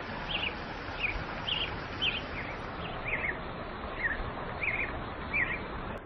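A small bird chirping: about ten short, quick, high-pitched chirps spaced roughly half a second apart, over a steady background hiss.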